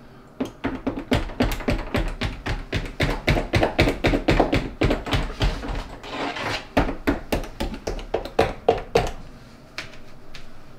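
DeWalt cordless impact driver hammering deck screws into a kitchen backsplash: a fast, rattling run of impacts in spurts with short pauses, dying away about nine seconds in.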